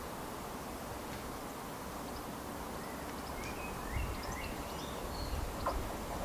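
Steady outdoor background noise with a few short rising bird chirps around the middle. From about four seconds in comes a faint low rumble as a Class 170 Turbostar diesel multiple unit approaches in the distance.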